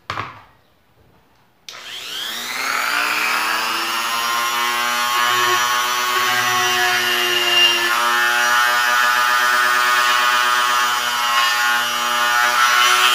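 Corded rotary tool (micro grinder) switched on about two seconds in, speeding up briefly and then running at a steady whine as a grinding-stone bit widens the eye hole in a shad lure blank.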